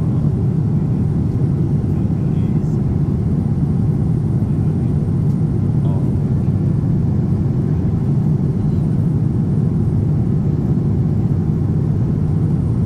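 Steady cabin noise of a Boeing 787-10 in flight, heard from a passenger seat: an even, low rumble of engines and rushing air.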